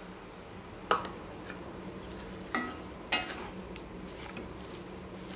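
Potatoes and capsicum sizzling in a cast-iron kadai with a cup of water just added, while a wooden spatula stirs them, knocking against the pan about four times.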